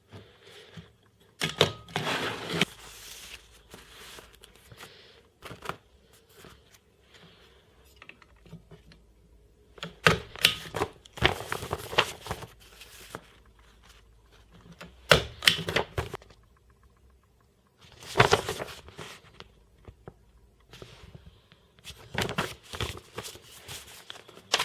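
Paper sheets rustling and being handled, with sharp clicks and clacks, in several short bursts separated by quieter pauses.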